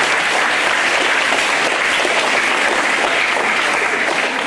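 An audience of schoolchildren clapping, steady and sustained, for award recipients.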